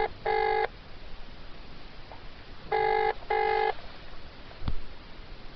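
British telephone ringing tone heard through a phone's speaker: the double 'brr-brr' ring, each ring a pair of short steady tones, comes once at the start and again about three seconds later while the call waits to be answered. A single sharp click sounds near the end.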